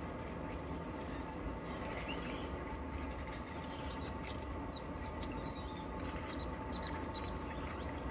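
Birds chirping outside the car: short, high calls scattered through, over a steady low background hum.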